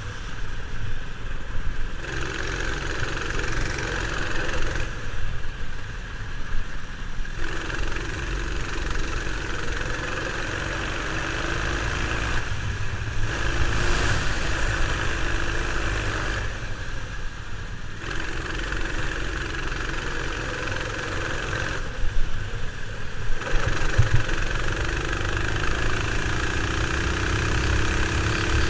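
Go-kart engine running at speed, heard from onboard over rumbling wind buffeting on the microphone. The engine note drops away several times and comes back, and climbs steadily in pitch near the end.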